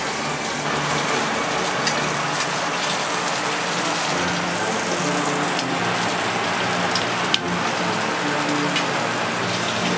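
Mushrooms frying in oil in pans on the stove, among them stuffed mushrooms: a steady sizzle with scattered crackles and pops.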